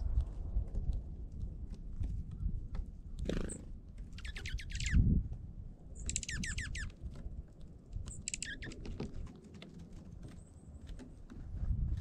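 Small songbirds calling in three short bursts of rapid notes, about four, six and eight seconds in. Underneath is a low rumble with scattered clicks and a dull thump about five seconds in.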